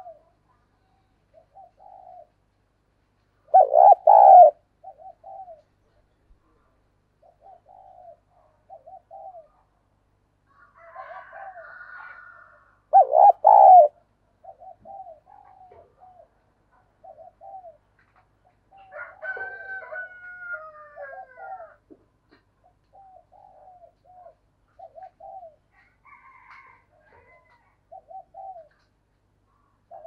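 Spotted dove cooing: short, low coos repeated every second or so, with two much louder, close coos about 4 and 13 seconds in. Higher, falling calls join in about two-thirds of the way through.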